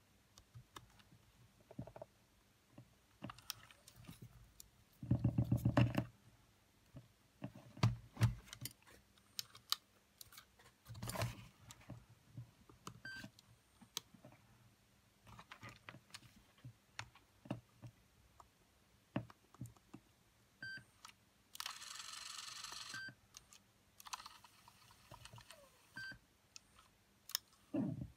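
Clicks, taps and knocks from handling the opened Sony WM-FX811 cassette Walkman and pressing its buttons, with several short high electronic beeps from the player. A second and a half of hiss comes about 22 seconds in.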